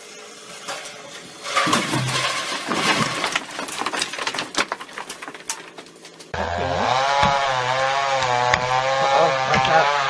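Chainsaw cutting, with a rough stretch full of sharp cracks. About six seconds in the sound changes abruptly to a chainsaw engine running steadily under load as it saws through a tree trunk at its base, its pitch wavering.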